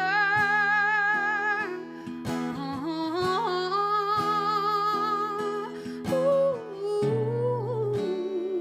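A woman singing long wordless notes with vibrato, gliding up and then down to a lower held note, over a strummed acoustic guitar.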